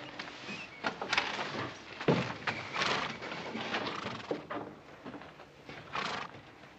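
A harnessed stagecoach team of horses stamping and shifting, with scattered hoof knocks and thuds at irregular intervals.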